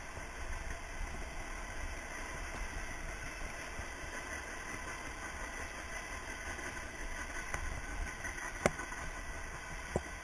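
Mountain bike rolling fast over a packed dirt trail, heard through a bike-mounted camera: a steady low rumble and rattle from the tyres and frame vibration. Near the end comes one sharp knock, then a smaller one a second later.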